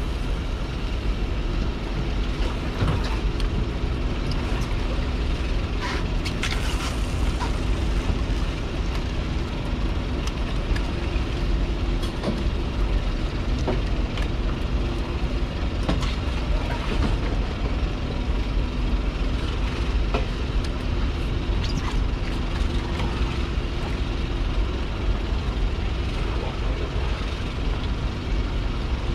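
Steady drone of a boat's engine, with a constant low hum and rushing noise throughout and a few faint ticks.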